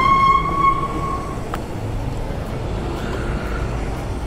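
A petrol pump dispenser gives one long electronic beep of about a second and a half as fuelling is set up, followed by a sharp click. A steady low traffic rumble runs underneath.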